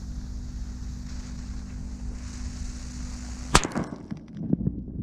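A small banger firecracker stick exploding: a single sharp bang about three and a half seconds in, with a short echo after it.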